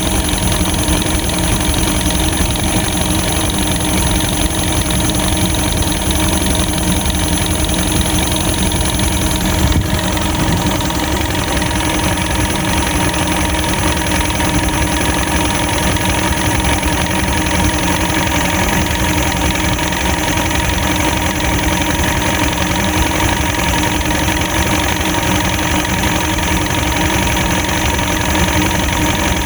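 Boat's outboard motor idling steadily with an even hum, a brief click about ten seconds in.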